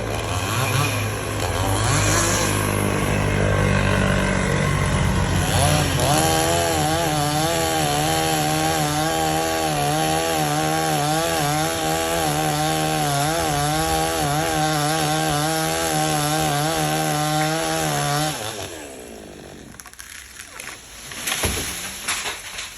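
Chainsaw running while cutting a tree. About six seconds in it revs up to high speed and holds there, its pitch wavering under load, then drops back off about eighteen seconds in. A few knocks follow near the end.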